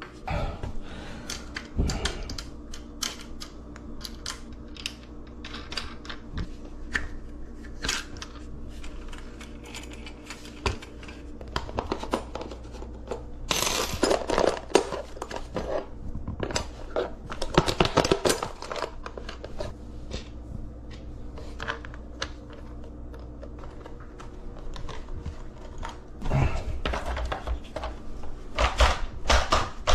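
Metal parts of a bike repair stand clinking and knocking as it is handled and assembled. Scattered clicks run throughout, with busier clattering around the middle and again near the end.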